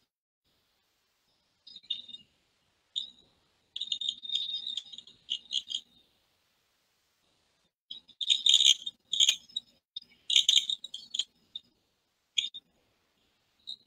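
Garbled, high-pitched electronic chirping in irregular clusters with silent gaps between them: a video's soundtrack coming through a screen share badly distorted.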